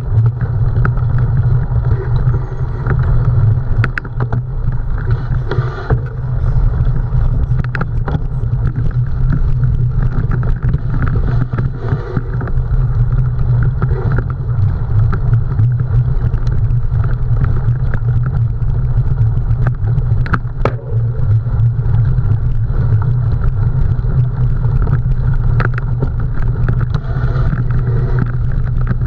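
Wind buffeting the camera microphone during a cyclocross ride: a steady low rumble, with tyre and drivetrain noise over it and a few sharp clicks.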